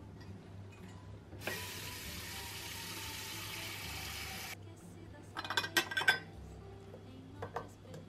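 Kitchen tap running into a stainless steel saucepan for about three seconds, cutting off suddenly. About a second later comes a quick run of metallic clanks and clinks, the loudest sounds, and two light taps near the end.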